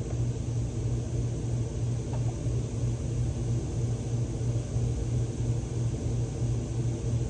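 Steady low hum and rumble of background machinery, with no other sound standing out.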